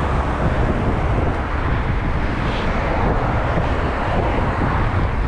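Steady road and engine noise of a car being driven, a constant low rumble with no separate events.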